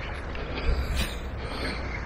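Handling and footstep noise from someone walking with a handheld camera, over a low rumble, with one sharp click about a second in.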